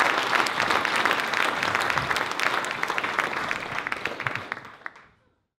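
Audience applauding, dense clapping that thins out and fades away near the end.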